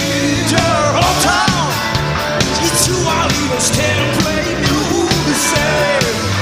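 A rock band playing live and loud.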